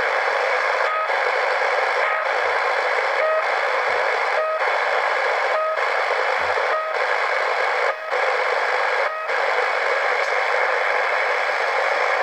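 Car dashboard radio putting out a steady hiss of static through its speaker. About once a second a short blip with a brief gap in the hiss repeats, eight times in all, then stops about nine seconds in while the static carries on.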